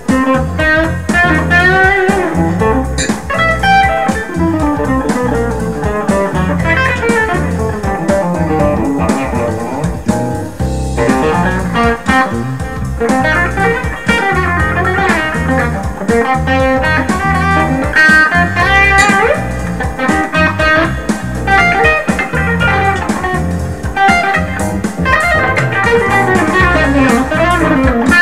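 1972 Fender Telecaster electric guitar played through a Fuchs ODS 50 amplifier: a fast blues solo of single-note runs with frequent string bends. It mixes blues-scale licks with modes of the melodic minor, harmonic minor and harmonic major scales.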